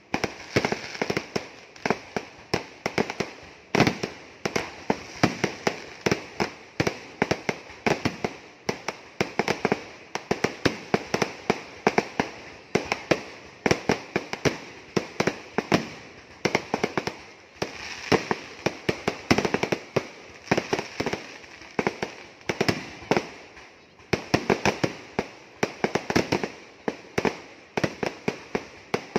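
Fireworks going off in a rapid, near-continuous barrage of bangs and crackles, in dense clusters with brief lulls.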